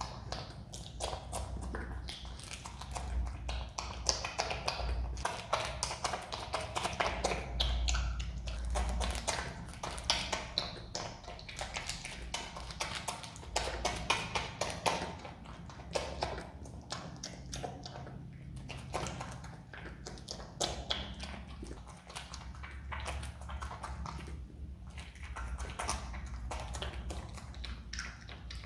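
Himalayan marmot chewing and biting pineapple: a dense, irregular run of quick crunching and smacking clicks.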